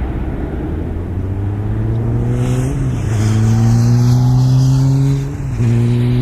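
A motor vehicle's engine accelerating, its pitch climbing steadily, with two brief dips about three seconds apart.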